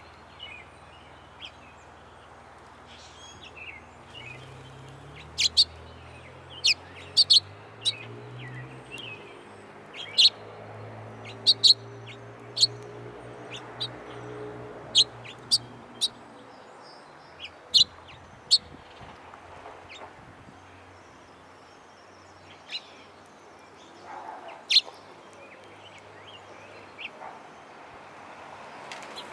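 Birds at a feeder giving many short, sharp chip calls, irregularly spaced. A low hum, like a distant engine, runs underneath through the first half.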